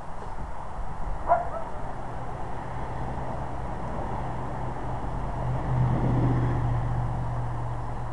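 A steady low motor hum that grows louder past the middle and then eases off, with one short animal call about a second in.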